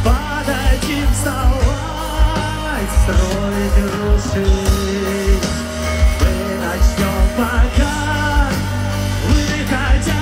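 Rock band playing live through a large open-air sound system, heard from among the crowd: a steady drum beat and heavy bass under guitars, with a wavering melody line on top.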